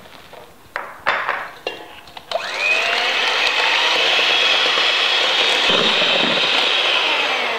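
After a few brief knocks, an electric hand mixer starts with a rising whine and runs steadily at high speed. Its beaters are whipping egg whites and sugar in a stainless steel bowl toward stiff peaks. The sound fades near the end.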